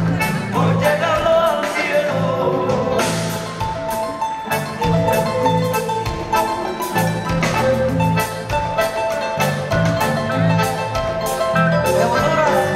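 Live Latin band music: a woman singing over a steady percussion beat.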